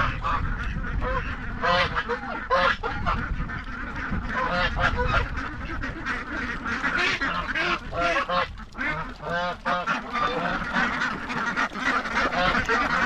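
A flock of domestic geese and ducks calling, with many short honks and quacks overlapping, over a steady low rumble.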